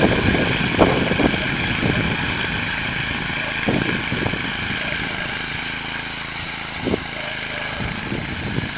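Simplicity Landlord garden tractor's engine running steadily as the tractor drives through deep snow, with a few dull knocks in between.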